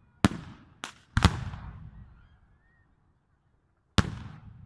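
Aerial firework shells bursting overhead: four sharp bangs, three close together in the first second and a half and a fourth about four seconds in. Each bang trails off in echo.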